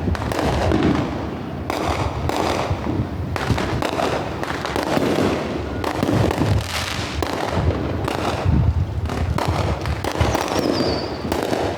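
Fireworks going off in a dense, continuous barrage of bangs and crackles, with a brief falling whistle near the end.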